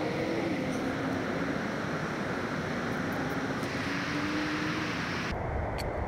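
Road traffic: a steady rush of passing cars with an engine hum that rises and falls in pitch. The sound changes abruptly about five seconds in, turning duller and heavier in the low end.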